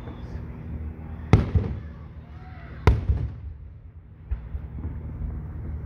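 Aerial firework shells bursting overhead: two loud bangs about a second and a half apart, each with a short echoing tail, and a softer bang later.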